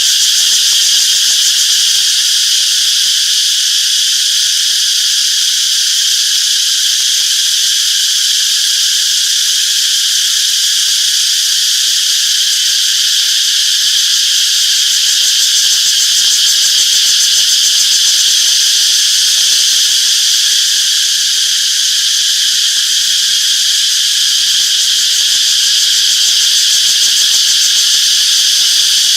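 Chorus of cicadas calling: a steady, unbroken high-pitched buzz with no pauses.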